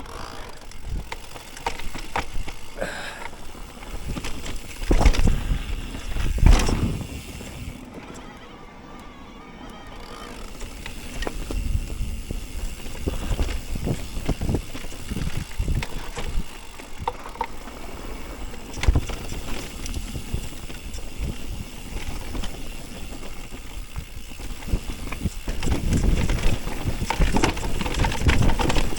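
Mountain bike ridden over rough dirt trail: tyres rumbling on the ground with frequent knocks and rattles from the bike, the heaviest thumps about five and six and a half seconds in, a brief easing around eight to ten seconds, then steady rough-ground rumble again.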